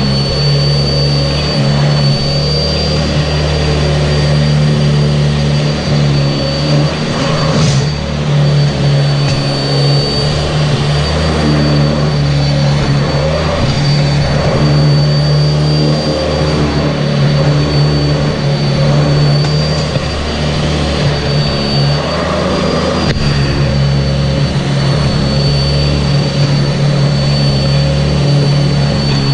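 Sanitaire SC679j commercial upright vacuum cleaner running continuously, close up, with a steady low hum and a high whine. Its level wavers slightly as it is pushed over the floor.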